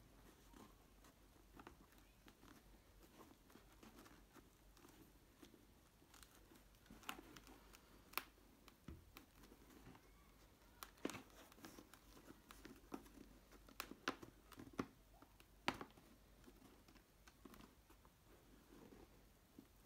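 Faint handling noise of hands working on a motorcycle helmet's plastic shell, with scattered sharp clicks and knocks, most of them between about seven and sixteen seconds in.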